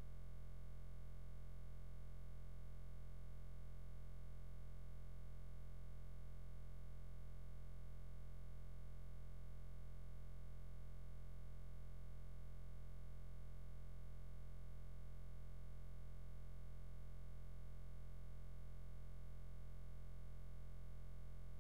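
Steady low hum with a faint hiss above it, unchanging throughout.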